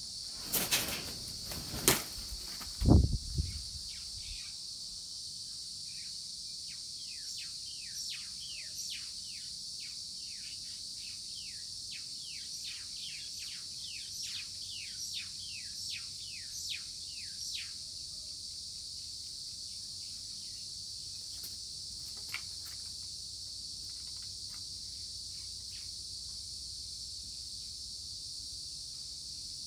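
Steady high-pitched insect chorus, with a small bird's quick down-slurred chirps repeating through the middle stretch. A few loud knocks and a low thump come in the first three seconds.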